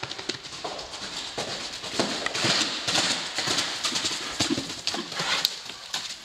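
Hoofbeats of a loose horse running on the sand footing of a covered arena, an irregular series of dull thuds with the scuff of hooves in the sand.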